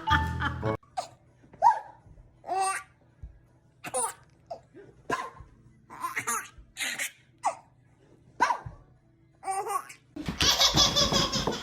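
A baby laughing in short separate bursts, about a dozen squeals of laughter with brief pauses between them. A louder, continuous sound takes over about ten seconds in.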